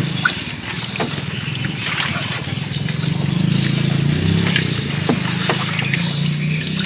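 A small engine running steadily, swelling a little in the middle, with water trickling and a few light knocks.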